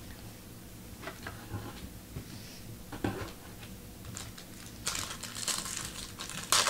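Foil trading-card pack wrapper being crinkled and torn open, with a few soft clicks and taps first and denser, louder crinkling from about two-thirds of the way through.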